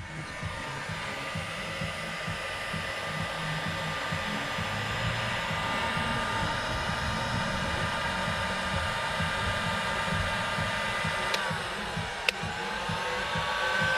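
Electric heat gun blowing steadily, its fan motor whining over a rushing hiss, used to shrink and melt solder-seal heat-shrink connectors on wiring. Near the end the motor's pitch sags briefly, there is a sharp click, and the pitch climbs back up.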